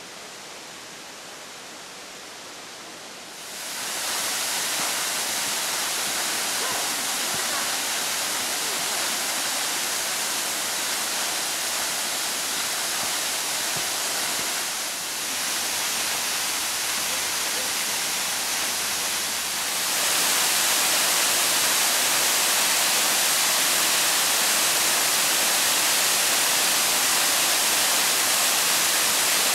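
Steady rushing of a mountain river. It is fainter at first, gets louder about three seconds in as rapids come close, and louder again about twenty seconds in at a waterfall.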